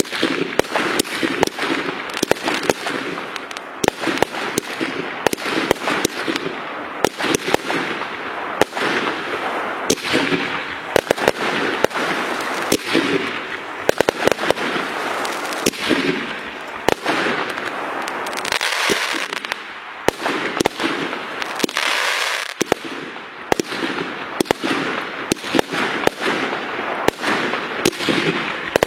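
Continuous rapid, irregular crackling and popping, with many sharp cracks over a steady crackle.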